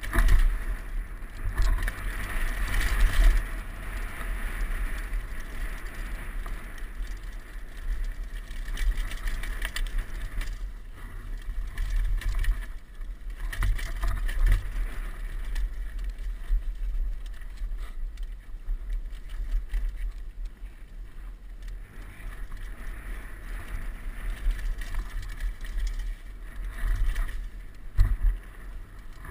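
Giant Glory downhill mountain bike rattling and crunching over a rocky dirt trail at speed, with a heavy low wind rumble on the helmet camera's microphone. Sharp knocks from hits come and go, the loudest about a quarter second in and near the end.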